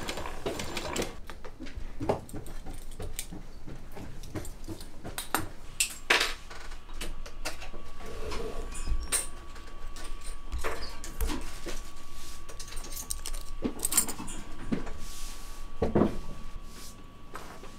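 An industrial sewing machine stitches briefly at the start. Then come irregular light metallic clinks and knocks of metal belt buckles and parts being handled on a workbench.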